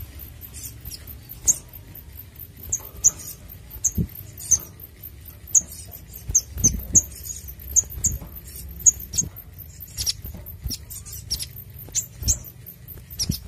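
Male olive-backed sunbird calling: a steady run of short, sharp, very high chirps, about one or two a second, broken by a few soft thumps.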